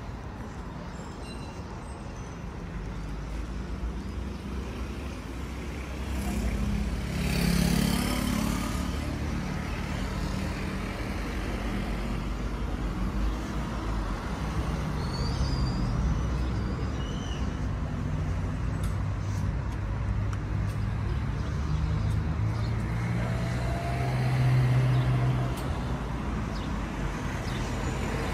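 Road traffic: cars running past on the street, with a steady engine rumble throughout. One vehicle goes by louder about seven seconds in, and a deeper engine note swells a few seconds before the end.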